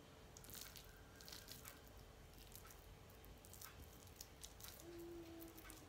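Faint squishing and crackling as fingers scoop and press soft cooked grated-carrot ladoo mixture. A short faint steady tone sounds near the end.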